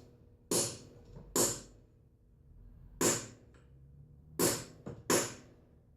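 Hammer smacks on a driver tool, five sharp metallic strikes with a short ring, irregularly spaced. They are driving a thread-repair insert into a cylinder head to expand its knurled end.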